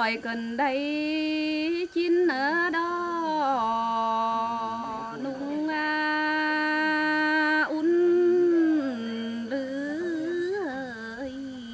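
A woman singing a Tày lượn cọi folk song unaccompanied, her single voice sliding into each phrase and holding long steady notes.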